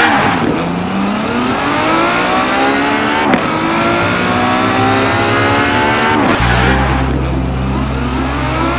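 A car engine accelerating hard through the gears, its pitch climbing steadily and dropping back at two shifts, about a third and two-thirds of the way through. A steady low drone comes in near the shift two-thirds of the way through.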